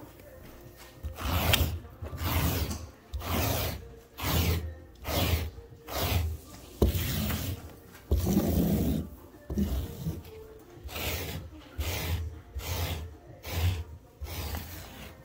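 Repeated scraping strokes of a handheld pet-hair removal tool raked across stair carpet, pulling cat hair out of the pile, about one to two strokes a second.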